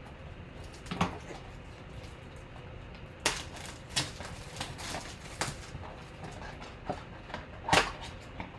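Handling noise from a cardboard 2021 Panini Prizm football mega box: a handful of separate taps and scrapes of cardboard under the hands, with a longer rustle near the end as the box's flaps are pulled open.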